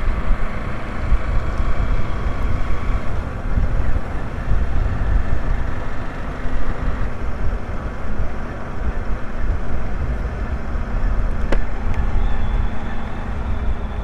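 Motorcycle running on the road while riding, with heavy wind rumble on the microphone.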